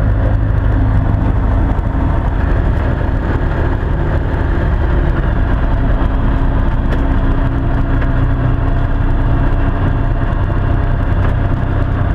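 Ikarus C42 microlight's engine and propeller running steadily at low power while lined up on the runway before the take-off roll.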